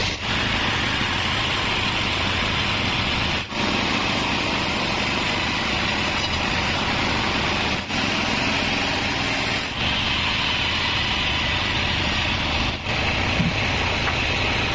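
36-inch band sawmill running steadily as it saws wadang timber: a continuous mechanical drone with a low motor hum under a high hissing saw noise, broken off for an instant about four times.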